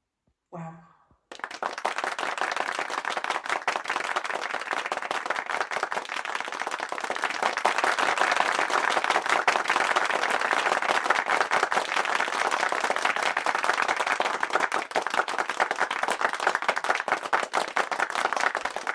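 Applause from a crowd: dense, steady clapping that starts abruptly about a second in.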